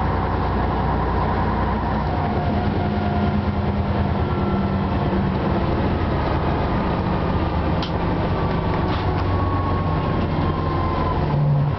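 Ikarus 260 city bus heard from inside while driving: the diesel engine runs steadily under road rumble, with a faint whine that slowly falls in pitch.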